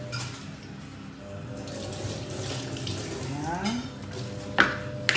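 Two sharp knocks near the end, a kitchen knife chopping carrots against a cutting board, over a low steady background with a brief rising tone partway through.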